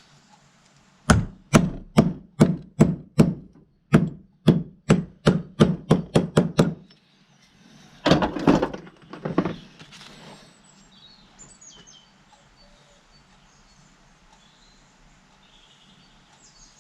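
About fifteen sharp hammer blows, quickening toward the end, tapping a part home into the hydraulic pump, followed a second later by a short clatter of handling.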